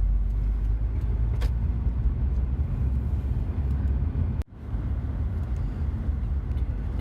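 Road noise inside a moving car's cabin: a steady low rumble of engine and tyres, which cuts out for an instant about four and a half seconds in.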